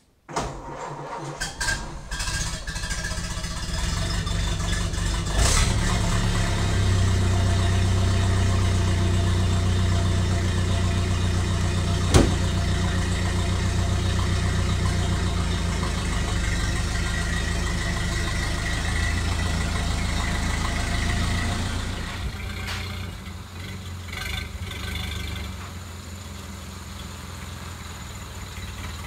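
A Ford Model A's four-cylinder engine is started with a few choppy catches, then settles into steady running. There is one sharp click about twelve seconds in, and the engine goes quieter from about twenty-two seconds in.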